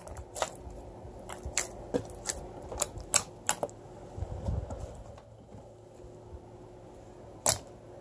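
Clicky slime being squeezed and poked by hand, giving a quick run of sharp clicks and pops through the first half, then a quieter stretch, and one loud pop near the end.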